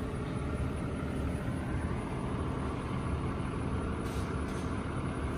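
Tractor engine running steadily: a low, even drone with a faint hum.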